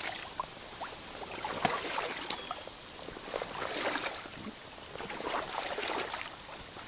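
A person wading through shallow swamp water, a slosh and splash with each stride, about one a second.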